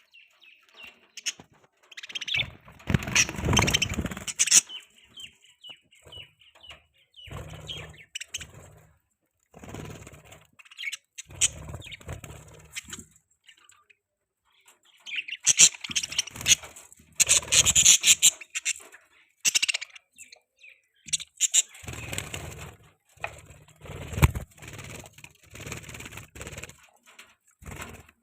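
Budgies chirping and chattering in irregular bursts, with louder, noisier flurries about three seconds in and again around the middle.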